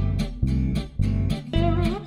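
Background music: plucked guitar over a steady bass beat.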